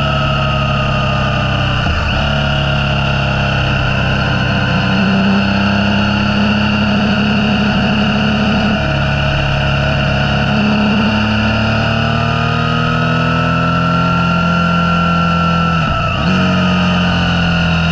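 Motorcycle engine running under way at road speed, its pitch slowly rising and falling. The engine note breaks briefly twice, about two seconds in and again near the end, as the rider shifts gear.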